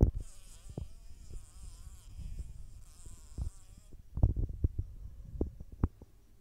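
House fly buzzing in bursts of wavering pitch as it struggles in a spider's grip, the buzz stopping about four seconds in. Low thumps and knocks come through it, the loudest at the very start and several more near the end.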